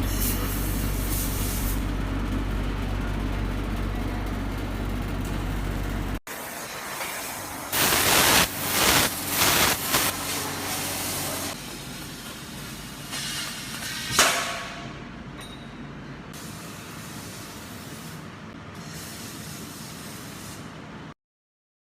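Laser welding and cutting machine at work: a steady hum of the unit running, then after an abrupt change, several loud hissing bursts as the head fires with its gas flow, and one sharp crack about fourteen seconds in, over a quieter steady noise that stops suddenly near the end.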